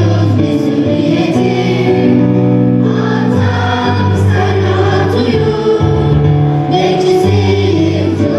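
Student choir singing in unison over an instrumental backing, with held bass notes that change every second or so.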